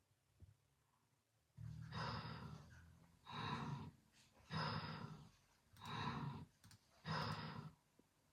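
Snoring: five loud, raspy breaths in quick succession, about a second and a quarter apart, starting about a second and a half in.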